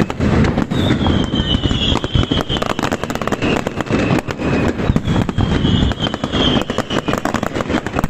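Aerial fireworks display going off continuously: a rapid, dense barrage of bangs and crackles, with several whistling fireworks sounding high tones that fall slightly in pitch.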